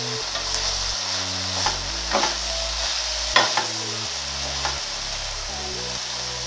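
Shredded cabbage with sausage pieces sizzling in a kazan while a spatula stirs it, with a steady hiss under a few scrapes and knocks of the spatula against the pot, the loudest about three and a half seconds in.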